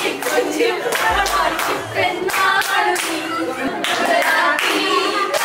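A group of women singing together while clapping their hands in a steady rhythm.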